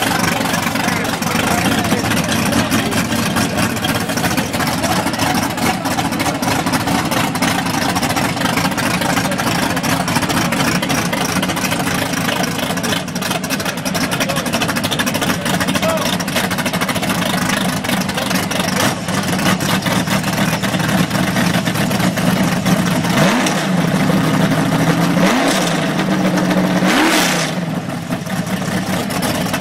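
Fox-body Ford Mustang drag car's engine idling steadily at the starting line, then blipped three times near the end, each a short rising rev about two seconds apart.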